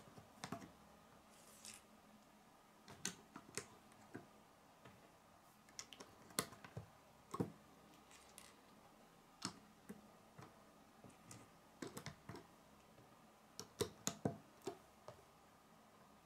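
Plastic Lego bricks clicking as they are handled and pressed together: sparse, irregular sharp clicks, with a few in quick succession near the end.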